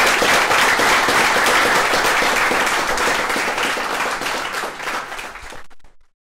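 Audience applauding, a dense patter of many hands clapping that fades and cuts off about six seconds in.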